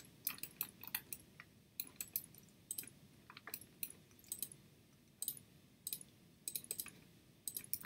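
Computer mouse and keyboard clicks: short, sharp clicks at irregular intervals, often in close pairs, about three a second.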